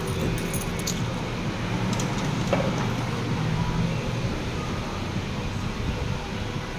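Steady mechanical din of a claw crane machine and its surroundings while the claw moves, with a few sharp clicks near the start and about two seconds in.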